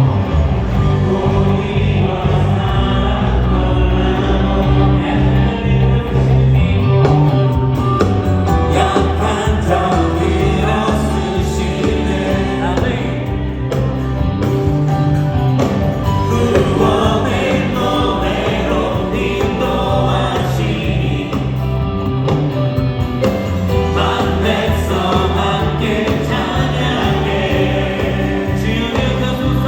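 Church worship band of keyboard, electric guitar, bass guitar and drums accompanying a group of singers in a contemporary Christian praise song.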